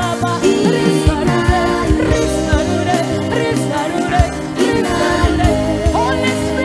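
Live gospel worship song: a woman sings the lead melody over keyboard and acoustic guitars.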